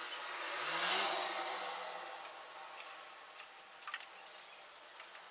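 A vehicle passing by: a rushing sound with a low hum swells to its loudest about a second in and fades away over the next two seconds. A few light clicks follow near the end.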